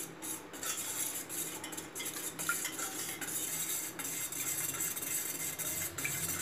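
Wire whisk beating curd and water in a stainless steel pot, its wires scraping and clinking against the metal in a steady stream of small irregular clicks as the curd is churned into buttermilk.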